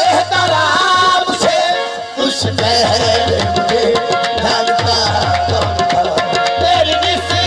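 Qawwali music between sung lines: harmonium holding steady notes over a driving tabla rhythm.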